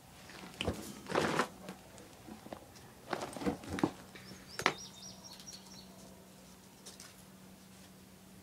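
Light scuffs and scrapes on a gritty floor, several in the first five seconds, then a few faint high chirps, over a low steady hum.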